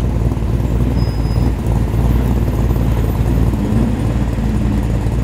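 Classic Holden cars' engines idling and running slowly past in a queue, a steady low rumble with no revving.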